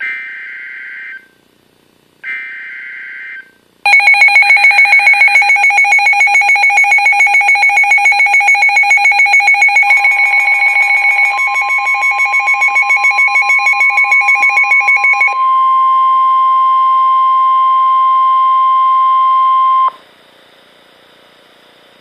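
Midland NOAA weather radios sounding an Emergency Alert System warning: two short buzzy data bursts of the alert header, then loud rapid alarm beeping from the radios over the steady 1050 Hz warning tone. The beeping stops partway through, and the tone runs on alone a few seconds more before cutting off.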